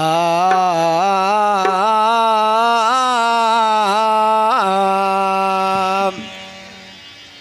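A man's voice singing a long wordless opening phrase of a qawwali, holding notes that step and waver in pitch with a quick slide near the end, then breaking off about six seconds in.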